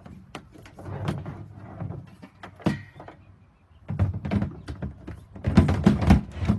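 Handling noise of assembling the Bistro Bar: a run of knocks, clunks and rubbing as the beer line is fed through the hole in the tabletop, busiest in the first two seconds and again from about four seconds in, loudest near the end.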